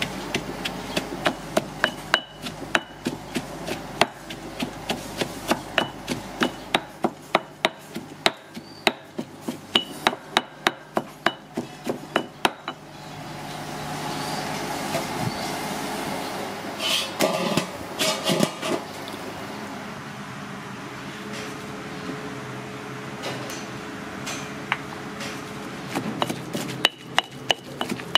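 Stone pestle pounding chilies in a stone mortar, sharp knocks at roughly two to three strikes a second. The pounding breaks off about halfway, giving way to a steady hiss and a few clatters, and starts again near the end.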